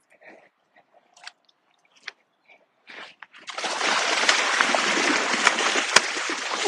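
A wels catfish strikes a surface lure and thrashes. A few faint ticks come first, then loud, heavy splashing starts suddenly about three and a half seconds in and keeps churning.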